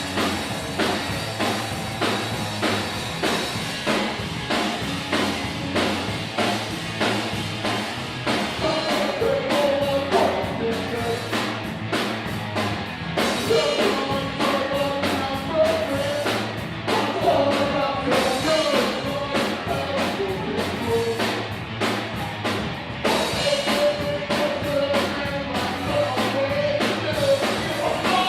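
Rock band playing with a drum kit keeping a steady beat, guitar and a singer; the vocal line stands out more clearly from about nine seconds in.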